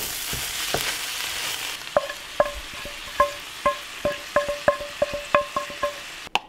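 Ground beef in tomato sauce sizzling in a frying pan as a wooden spoon stirs it. About two seconds in, a second pan of sautéed onion and peppers is scraped out into it, and the wooden spoon knocks against the metal pan about three times a second, each tap ringing briefly.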